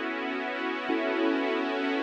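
Background music: electronic keyboard or synthesizer playing sustained chords, with a chord change about a second in.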